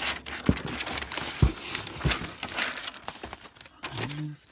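Tissue paper rustling and crinkling as hands fold it back inside a cardboard box, with three soft thumps in the first two seconds.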